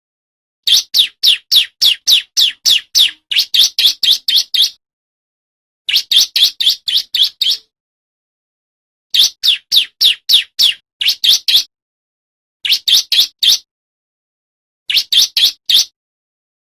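Male bar-winged prinia (ciblek) singing loud, rapid strings of sharp, high repeated chirps, about four to six a second. The song comes in bouts of one to four seconds separated by short silent gaps.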